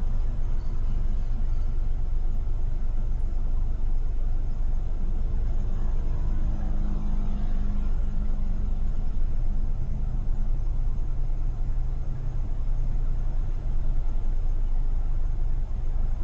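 Steady road and traffic rumble from driving in busy city traffic. About six seconds in, an engine hum comes up over it, then drops to a lower pitch for a few seconds before fading back into the rumble.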